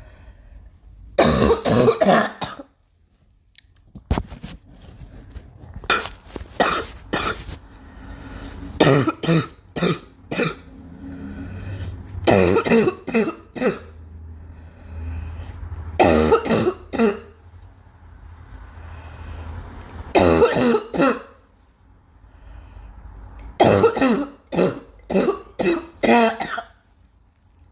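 A girl coughing in repeated fits: about eight bouts, each a quick run of several harsh coughs, with quieter pauses of a second or more between them.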